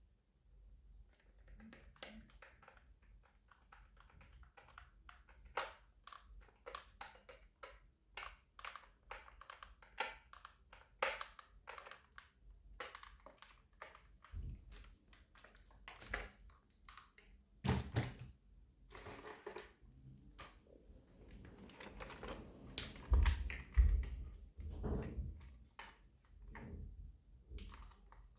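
Mini RC construction vehicle working loose dirt: irregular clicks, scrapes and crunches of the bucket and soil, with a few heavier low thumps in the second half.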